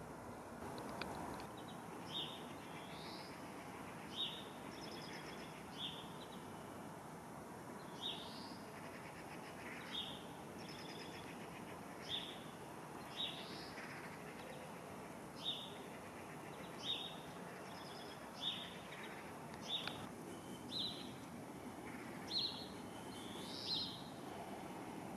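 Faint bird chirping: short, repeated calls every second or two over a soft steady background hiss.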